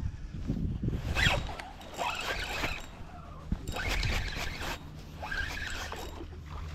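Spinning reel being cranked to retrieve a lure, a rasping, zipper-like whir in two spells of about two seconds each, over a faint low hum.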